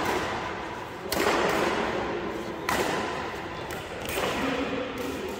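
Badminton rackets striking a shuttlecock in a rally: three sharp hits about a second and a half apart.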